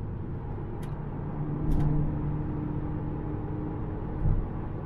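Cabin sound of a Volkswagen Golf GTI TCR at about 160 km/h: its turbocharged 2.0-litre four-cylinder engine running at a steady pitch under road and wind noise. Two sharp clicks come about a second apart in the first two seconds, and a brief low thump just after four seconds.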